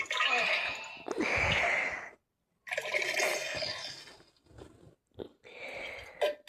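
Fart sound effects: several noisy, sputtering bursts, the longest about a second each, separated by a brief silence, with a shorter one near the end.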